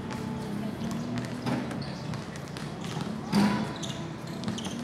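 Basketball bouncing and knocking on an outdoor hard court during play, with players' voices calling out. A voice rises loudest about three and a half seconds in.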